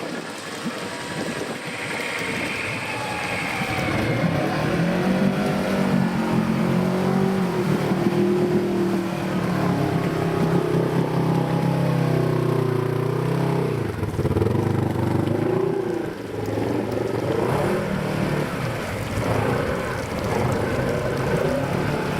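Off-road vehicle's engine revving up and down under load, its pitch rising and falling repeatedly, louder from about four seconds in.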